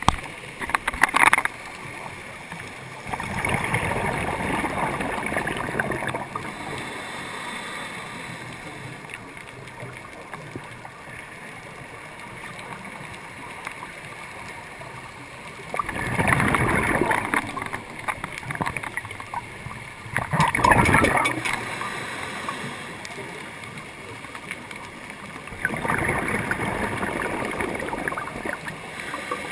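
Scuba diver's exhaled bubbles rumbling and gurgling past the underwater camera in four long bursts, with a steady low hiss of water between them.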